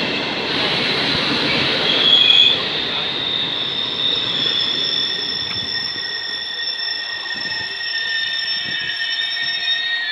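Train wheels squealing on the rails in several steady high-pitched tones as a Trenitalia regional train moves slowly through the station. This comes over a rolling rumble of the passing coaches that fades after the first few seconds.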